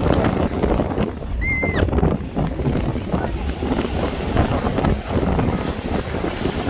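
Wind buffeting the microphone in a loud, uneven rumble, with a brief high-pitched cry about a second and a half in.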